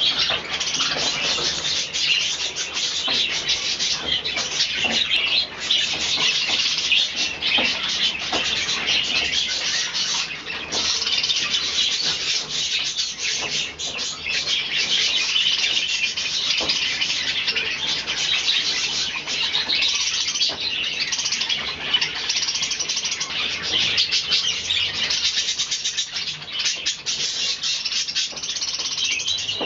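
Budgerigars chattering and chirping continuously, a dense unbroken warble of many birds.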